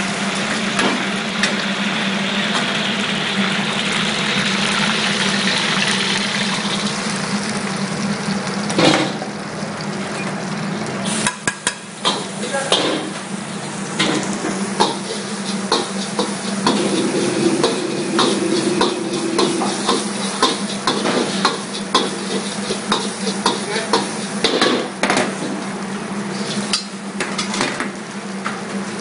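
Soft-shell crabs frying in hot oil in a steel wok, a steady sizzle for the first several seconds, then many quick clinks and scrapes of a metal ladle and strainer against the wok as the crabs are drained and stir-fried. A steady low hum runs underneath.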